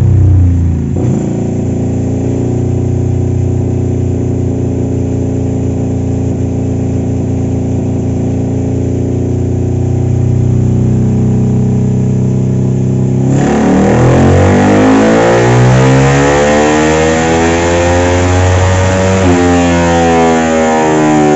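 Suzuki Satria FU single-cylinder four-stroke engine, bored out to 200cc, running on a chassis dyno: it holds a steady speed for about 13 seconds, then the throttle is opened wide and it pulls hard through a dyno run, getting louder with the pitch climbing.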